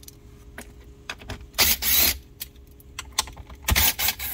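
Cordless power driver with a 7 mm socket run in two short bursts, about a second and a half in and again near the end, backing out the bolts that hold a car's radio module. Light clicks and rattles of the bolts and socket come between the bursts.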